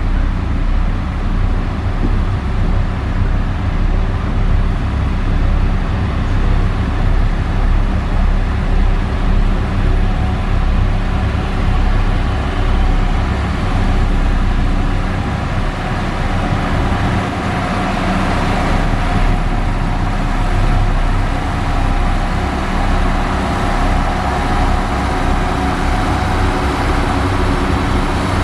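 Diesel engine of heavy earthmoving equipment running steadily under load.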